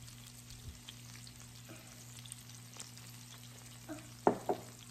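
Pork belly and king mushroom slices sizzling quietly on an electric raclette grill plate, with a few light clicks of metal chopsticks. Two sharp knocks close together near the end.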